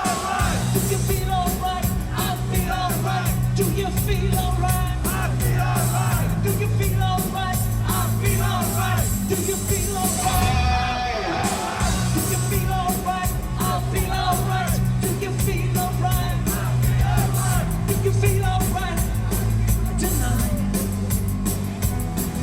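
Live hard rock band playing at full volume: sung vocals over electric guitar, bass and a steady drum beat. The cymbals and high end drop out briefly about halfway through.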